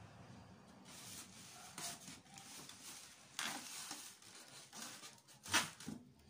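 Plastic wrap crinkling and polystyrene foam packing rubbing under hands, in several short bursts of rustling, the loudest near the end.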